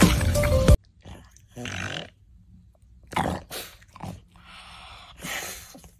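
Loud music that cuts off abruptly under a second in, then a pug making a handful of short, breathy noises through its flat nose, each lasting well under a second.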